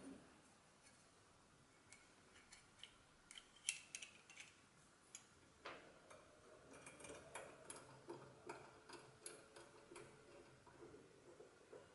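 Faint, sharp metallic clicks and ticks as small brass finger-plane parts are handled and fitted together, sparse at first and coming more often, a few a second, in the second half.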